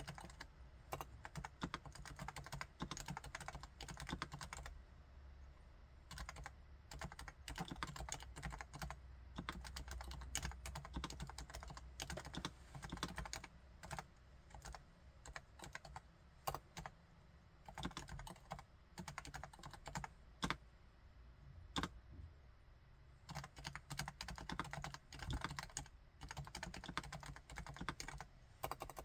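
Continuous typing on a Topre Realforce R4 keyboard's electro-capacitive (Topre) switches: a fast, even run of soft, quiet keystrokes with a few louder single strokes standing out.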